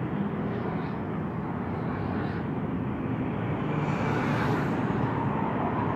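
Road traffic: the steady noise of cars and motorcycles driving past, swelling a little about four seconds in as a vehicle goes by.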